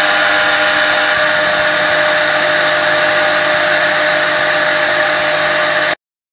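CNC router spindle running as it mills a groove into Valchromat (dyed MDF board): a loud, steady whine over cutting noise that cuts off abruptly near the end.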